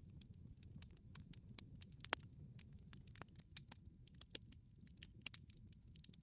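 Campfire crackling softly: irregular small pops and snaps, one sharper pop about two seconds in, over a low rumble.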